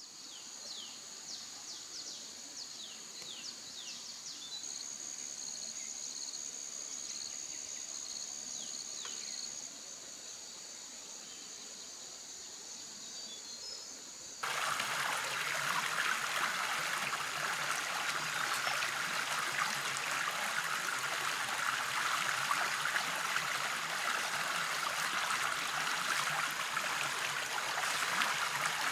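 Forest ambience of insects buzzing steadily at a high pitch with short falling bird chirps. About halfway through it cuts abruptly to the louder, steady rush of a shallow stream running over rocks.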